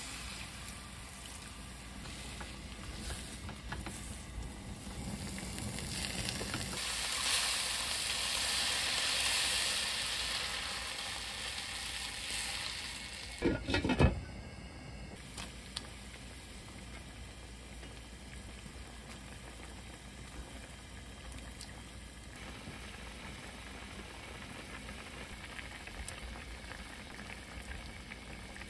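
Shredded dried pollack sizzling in perilla oil in a wok as it is stirred and sautéed, the sizzle growing louder for several seconds. About halfway through there is a short loud burst as stock goes into the hot pan. After that the pollack soup bubbles at a steady boil.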